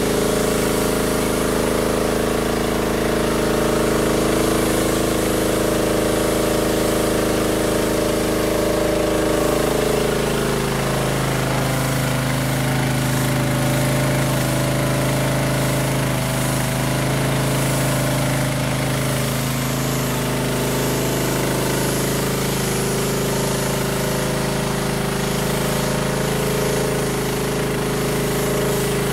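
Gas pressure washer with a 9 hp Honda engine running steadily under load while its wand blasts a jet of water onto concrete, the engine drone over the hiss of the spray. The engine's tone shifts about ten seconds in and again a little past twenty seconds.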